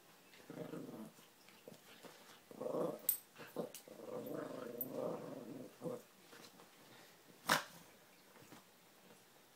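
Small dogs growling as they play-fight, in three bursts, the longest about a second and a half, with short sharp clicks in between. A single sharp knock about three-quarters of the way through is the loudest sound.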